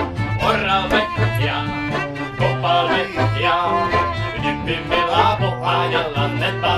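Background folk music with a steady bass beat.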